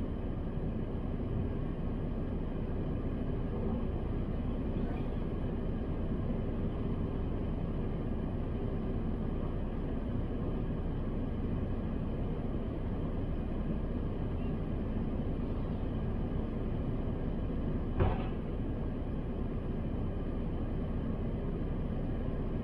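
Steady low hum inside a parked car's cabin, with a single sharp click about 18 seconds in.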